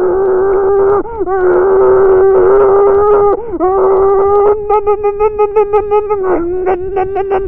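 A man imitating an enduro motorcycle engine with his voice, a held, high buzzing engine note with brief dips in pitch, like gear changes. About halfway through it breaks into a fast stutter of about seven pulses a second.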